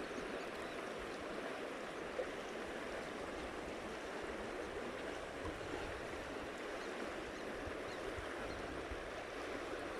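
River water flowing steadily over a gravel bed, an even rushing sound with a small tick about two seconds in.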